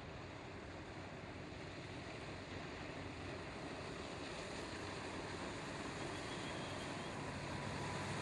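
Motorboat under way at speed: a steady outboard-engine hum mixed with the rush of the hull and wake through the water, growing gradually louder as the boat comes closer.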